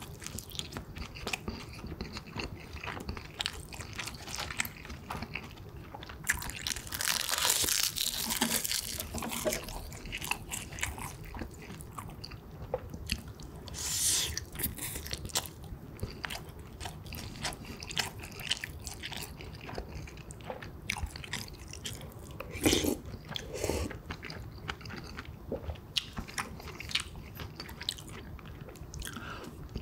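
Close-miked eating sounds: a person biting and chewing a mouthful of pork kimchi stew and rice, with many small wet mouth clicks. There are two longer noisy stretches, about a quarter of the way in and near the middle, and one sharp click about three-quarters of the way through.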